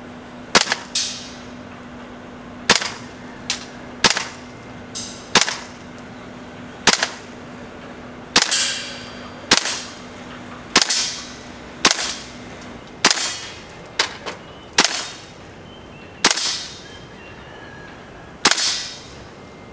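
WE SCAR gas blowback airsoft rifle firing single shots, about fifteen in all at roughly one a second; each shot is a sharp pop with the bolt snapping back and forward.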